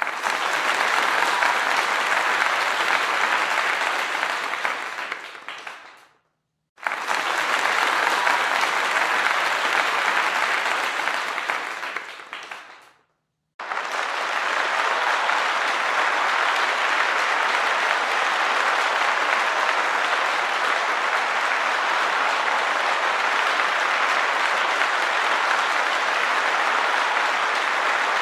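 Audience applause in three stretches: the first two start suddenly and die away into brief silences about six and thirteen seconds in, and the third runs on steadily.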